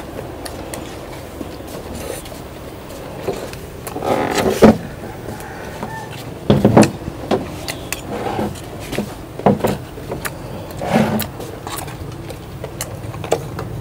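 Someone eating fried chicken tails: scattered crunches and clicks, with a few louder short bursts, over a steady background noise.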